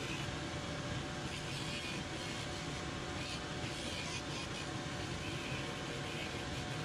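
Shoe finishing machine running steadily as its naumkeag sanding head scuffs the old finish off the bottom of a leather shoe sole.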